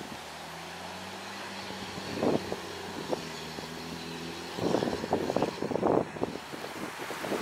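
Diesel engine of a 2004 Peterbilt 330 fire tanker driving off, a steady low drone. About four and a half seconds in, gusts of wind buffet the microphone with a run of irregular crackling thumps that cover the engine.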